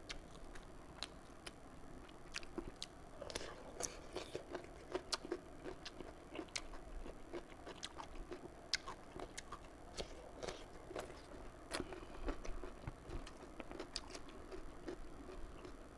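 Close-miked chewing and eating mouth sounds of a person eating fish curry with rice, with many small irregular wet clicks and smacks.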